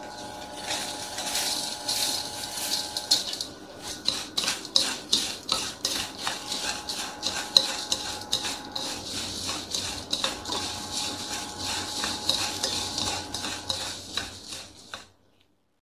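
Cut dried seaweed stir-frying in hot oil in a stainless-steel wok, sizzling, while wooden chopsticks and a wooden utensil stir it, scraping and clicking against the metal many times. It cuts off abruptly near the end.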